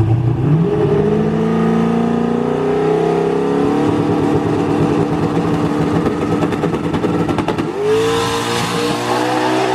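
Car engine accelerating hard under full throttle: its pitch climbs quickly, holds high for several seconds, then climbs sharply again near the end.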